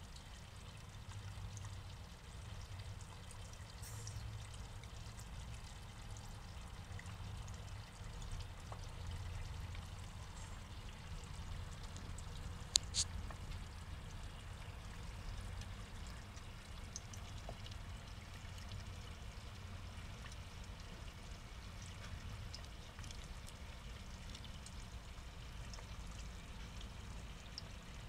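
Water pouring steadily into a small pond, a constant trickling splash, with one sharp click about halfway through.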